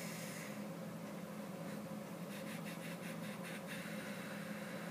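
A steady low hum with faint, soft rustling through the middle, the sound of notes being searched.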